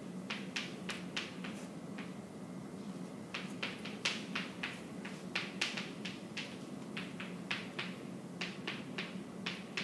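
Chalk writing on a chalkboard: irregular short taps and scratches, a few a second, over a steady low room hum.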